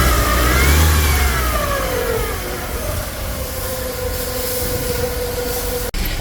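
2009 Hyundai Tucson 2.0 petrol inline-four, freshly top-overhauled, running: it revs up briefly, falls back, then settles into a steady idle.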